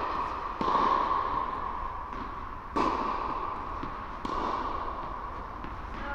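Tennis balls being struck on a nearby court in a large indoor tennis hall. There are three sharp pops, at about half a second, about three seconds and about four seconds in, each ringing on in the hall's echo.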